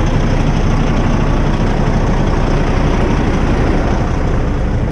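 Heavy diesel truck engine running hard and steady under load while a stuck, loaded dump truck is pulled out with a tow truck's winch.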